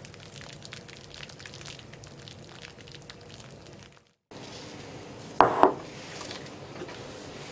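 Light, steady crackling from rice in a clay donabe pot on a gas burner. A little past the middle, two sharp clinks of ceramic sound close together, a rice bowl being knocked or set down.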